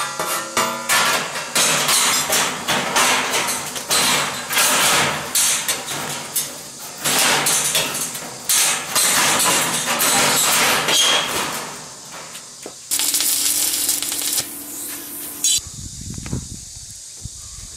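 Galvanized sheet-metal panel scraping, rattling and clanking against a steel-angle frame as it is fitted into place. Near the end, a brief steady mechanical whir.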